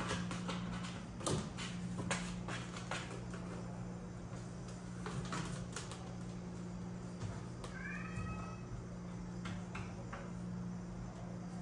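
A cat nosing into a cardboard box: light rustles, scrapes and small knocks of cardboard and paws, then one short meow about eight seconds in. A steady low hum runs underneath.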